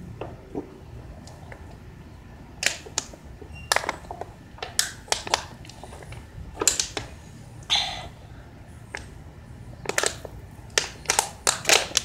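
Thin plastic water bottles crackling and popping as they are gripped and drunk from in a race: irregular sharp crinkles, coming thicker near the end.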